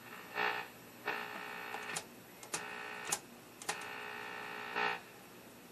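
Westinghouse H-196 television's speaker giving out a distorted buzz in place of a clean 1 kHz test tone. The buzz starts and stops in four bursts, with sharp clicks between some of them, as the test signal is switched on and off. The restorer takes the buzz for a sign that the set's IF alignment is off.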